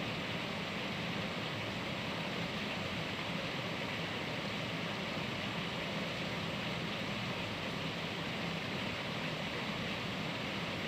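Heavy rain pouring steadily, a dense even hiss of falling water with no distinct drops standing out.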